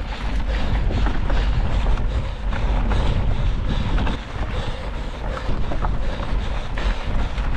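Mountain bike rolling fast over a rocky dirt trail: tyres crunching on gravel, with many small ticks and rattles from stones and the bike. Wind rumbles steadily on the action camera's microphone.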